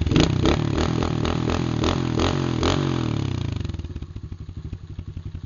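Small Chinese dirt bike's single-cylinder engine revving hard while the rear wheel spins in loose dirt and throws it up. About three and a half seconds in it falls back to an even idle.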